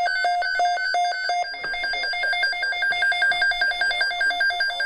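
Weather radio alert alarm sounding: an electronic two-tone warble switching back and forth between a low and a high pitch. The switching speeds up about a second and a half in.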